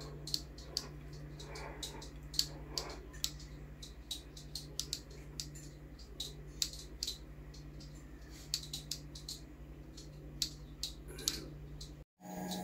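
Quiet room tone: a steady low electrical hum with many faint, irregular clicks and ticks scattered through it. The sound drops out at an edit just before the end.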